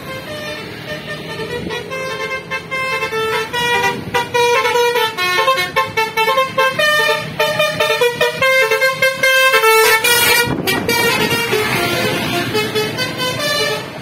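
Tour bus's telolet basuri multi-tone horn playing a tune of quickly changing notes, growing louder as the bus approaches and passes. About ten seconds in, the tune stops and there is a short burst of hissing.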